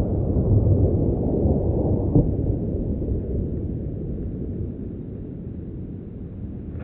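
Long rumbling echo of a rifle shot rolling off the surrounding mountainsides, fading away steadily over several seconds.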